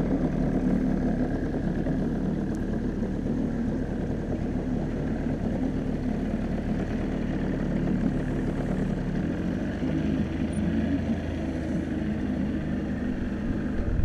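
Small boat's outboard motor running steadily under way, its note shifting slightly lower about ten seconds in.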